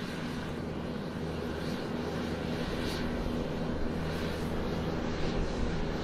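Airplane engine noise: a steady rumble with a low hum under it, slowly growing louder.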